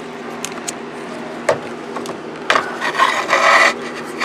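A few light clicks, then just over a second of scraping and rubbing, from a hook and hard parts being worked inside a car's dashboard. A short rub follows near the end.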